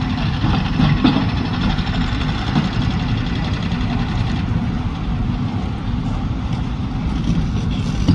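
Diesel engine of a Casagrande B280 CFA piling rig running steadily, a low, continuous engine drone.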